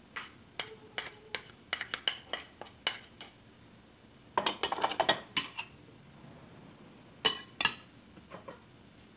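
A spoon clinking and scraping against a ceramic plate and a glass mixing bowl as shredded chicken is knocked off into the bowl. There is a run of short sharp clinks, a busier flurry a little past halfway, and two loud knocks later on.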